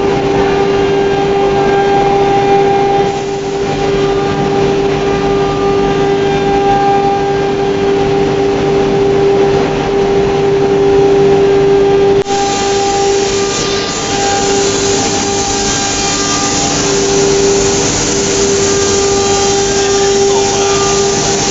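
FLDM F3 CNC router running, its spindle giving a steady high whine. About twelve seconds in, a loud hiss joins suddenly and carries on.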